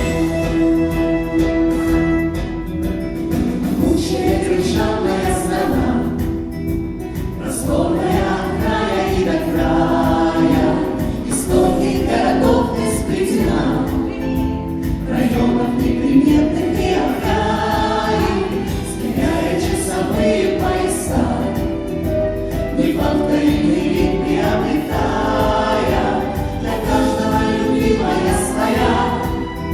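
A choir singing with musical accompaniment, recorded live at a concert.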